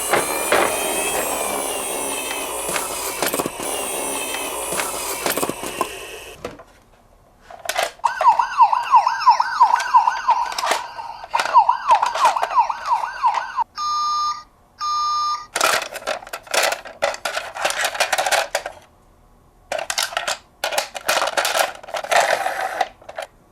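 Electronic siren sounds from toy ambulance and police minicars: a fast warbling siren, then a siren sweeping up and down over and over, two short steady beeps, and then a stretch of plastic clicking and clattering.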